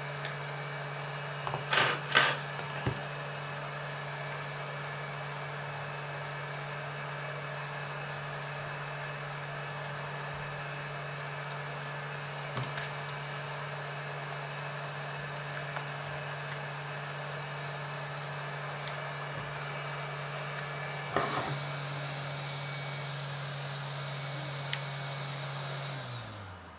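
Hot air rework station's blower running steadily, a low hum under an airy hiss, then switched off near the end, its pitch sinking as it spins down. Over it come a few sharp clicks of a plastic card prying at the phone's heated touchscreen, loudest about two seconds in.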